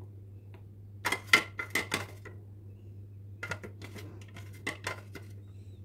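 Two flurries of light, sharp clicks and clinks of kitchenware, each lasting a little over a second, over a low steady hum.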